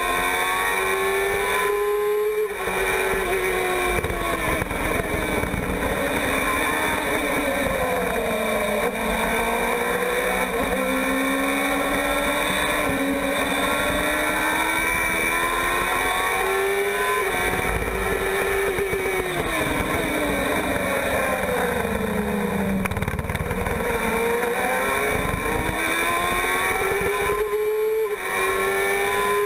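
A Formula 1000 car's 1000 cc motorcycle engine screaming at high revs, heard onboard. Its pitch climbs under acceleration and drops away with the downshifts under braking. Short breaks in the sound about two seconds in and again near the end mark upshifts.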